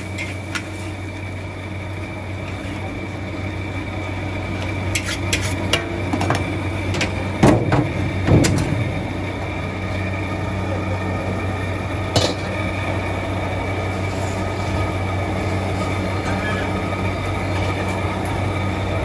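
Steady hum of a hawker wok stall's burner and extractor fan, with a few sharp metal clanks of a spatula against the wok. The loudest clanks come about seven and a half and eight seconds in.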